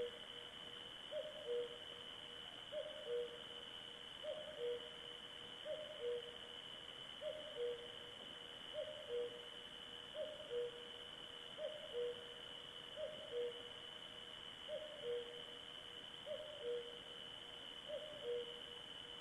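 A night bird, owl-like, giving a repeated two-note hoot, a higher note then a lower one, about every second and a half, over a steady high-pitched drone.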